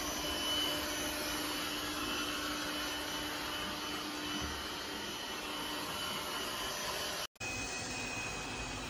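BPMIO B10 Plus robot vacuum running with a steady whir and a thin high whine. The sound breaks off for a moment about seven seconds in, then carries on with a slightly different whine.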